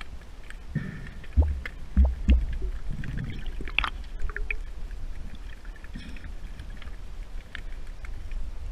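Underwater sound picked up by a snorkeler's camera: a steady low rumble of moving water, with scattered small clicks and crackles. Three heavy dull thuds come close together between about one and a half and two and a half seconds in.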